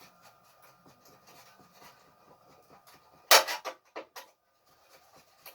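Stove parts and tools being handled during a gas stove repair: faint rubbing, then a short loud clatter of knocks and scrapes about three seconds in and one more sharp knock just after.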